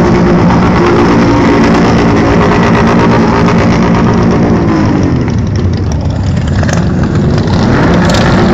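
Loud motorcycle engine held at high revs. The revs drop about five seconds in and climb again near the end.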